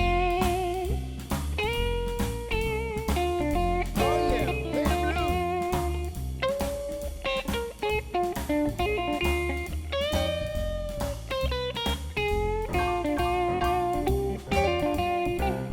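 Live blues band playing an instrumental intro, an electric guitar leading with held and bent notes over bass and drums.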